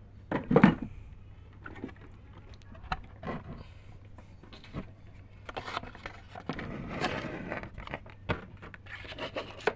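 A homemade plywood remote-control box being opened and handled: irregular knocks, clicks and wooden scraping, with the loudest thump about half a second in and a longer stretch of scraping and rubbing around the middle.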